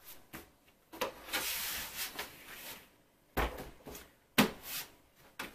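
Plastic knocks and a sliding scrape as the cylindrical filter and spring-loaded bottom cover of a Xiaomi Mi 3H air purifier are fitted back into the housing: a knock about a second in, a rubbing scrape for a couple of seconds, then two sharp knocks about a second apart.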